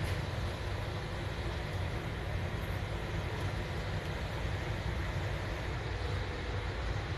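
Steady low rumble of a double-decker bus on the move, its engine and road noise heard from inside the upper deck.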